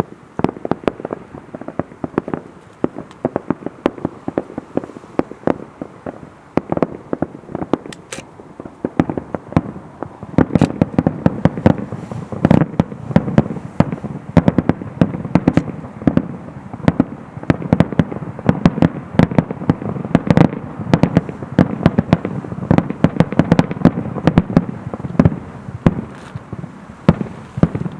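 Aerial fireworks bursting in quick succession, a dense run of overlapping bangs that grows thicker and louder about ten seconds in.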